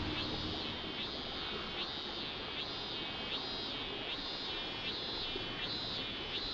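A cicada calling outdoors in a steady series of rising, buzzing pulses, roughly one every three-quarters of a second, over soft outdoor ambience.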